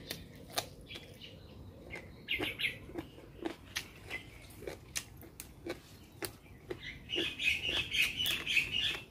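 Close-up chewing and lip-smacking of a man eating steamed pig's ear, a run of short wet clicks. Leaves rustle as he picks greens. Small birds chirp briefly about two seconds in and again for the last two seconds.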